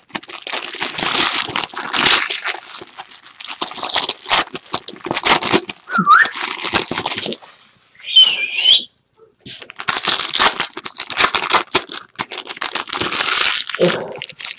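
Foil trading-card pack wrappers crinkling and tearing in repeated bursts as packs are ripped open by hand, with two brief high chirps about six and eight seconds in.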